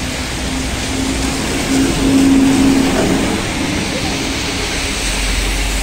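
ZiU-682 trolleybus passing close by on a wet road: tyres hissing on the wet asphalt over a steady electric hum, loudest as it goes by about two seconds in, then easing off.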